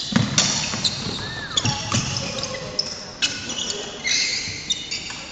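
Badminton being played on a wooden hall court: sharp racket hits on the shuttlecock and players' shoes squeaking and thudding on the floor, with several hits in the first three seconds or so before it settles down.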